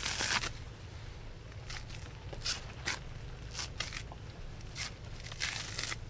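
Dry coconut husk being torn apart by hand: a string of short, irregular ripping crackles as the fibres split, over a steady low rumble.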